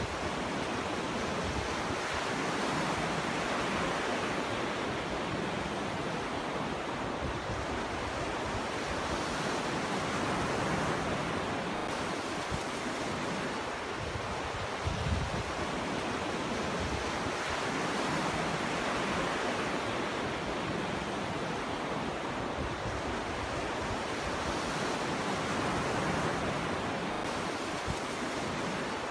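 Ocean waves breaking on a beach: a continuous wash of surf that swells and eases every several seconds, with a brief low thump about halfway through.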